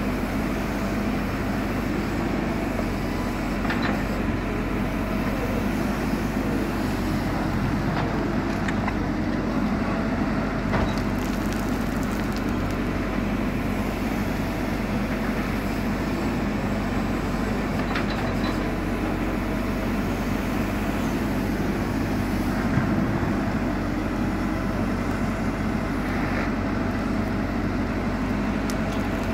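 JCB 4CX Eco backhoe loader working, its diesel engine running steadily, with a few short sharp knocks from the machine scattered through.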